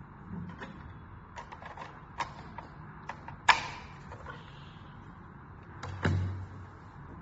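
A few scattered clicks and knocks, the sharpest about halfway through, then a duller knock with a low thud about six seconds in.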